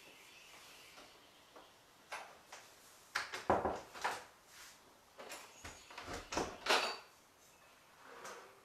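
Handling noise: an irregular run of knocks, clicks and rubbing, like objects being moved or a drawer or door being worked, loudest about three and a half and six and a half seconds in.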